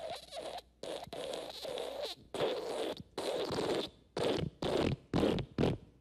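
Fart sound effects: a run of separate farts. The first few last around half a second to a second each, then from about two-thirds of the way in come shorter spurts in quicker succession.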